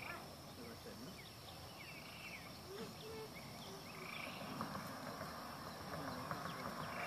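Rural field ambience: a steady high-pitched insect drone, with short animal chirps and calls sounding over it now and then.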